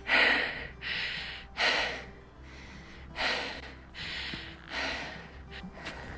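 A woman breathing hard through her mouth, a run of heavy, quick breaths in and out, out of breath from a steep uphill climb.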